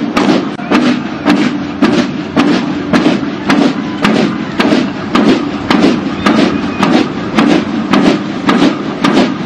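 Military band drums beating a steady marching cadence, sharp strikes about three a second.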